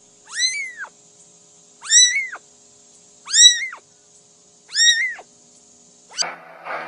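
A kitten meowing four times, high-pitched calls about a second and a half apart, each rising and then falling in pitch.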